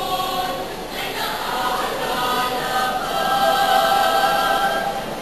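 Teenage choir singing in harmony, several voices holding sustained chords. A new phrase begins about a second in and swells into a long held chord.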